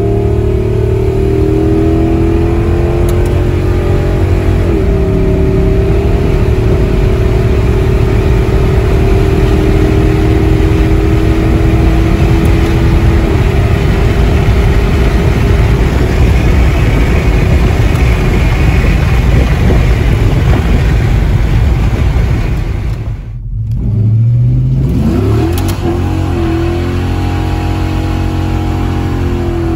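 Holden VS ute's 304 V8 engine running under load while driving, heard from inside the cabin, its pitch shifting a few times. The sound breaks off briefly about 23 seconds in and resumes with the engine revving up.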